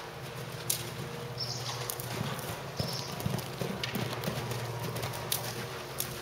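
Hoofbeats of a Canadian Warmblood horse cantering on dirt arena footing, with a run of heavier thuds about two to four seconds in as it meets and jumps a fence. A steady low hum runs underneath.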